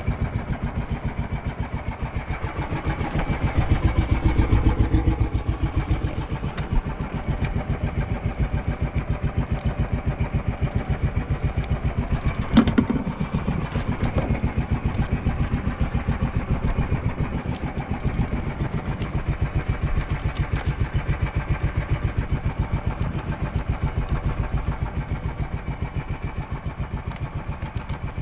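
Outrigger fishing boat's engine running steadily with an even, rapid pulse. A single sharp knock sounds about halfway through.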